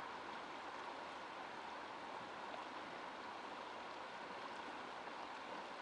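Faint, steady rushing of river water, with no distinct splashes or knocks.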